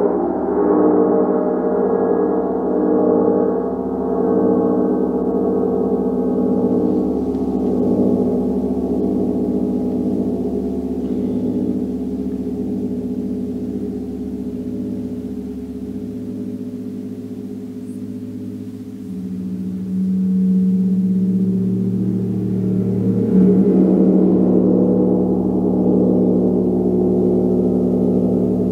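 Large hammered gong played with a mallet: a dense, sustained wash of many ringing tones that pulse and waver. It slowly fades for about the first two-thirds, swells again about twenty seconds in, and takes another stroke a few seconds later.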